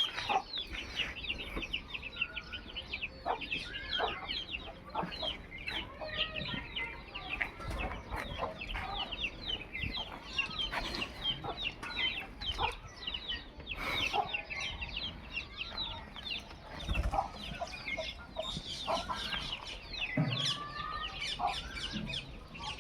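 Chickens clucking and chirping, a steady chatter of many short, high, overlapping calls.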